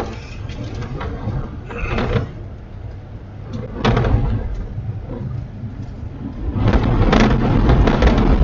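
A vehicle driving along a gravel road: a low rumble of tyres and wind noise, with louder noisy surges about four seconds in and again near the end.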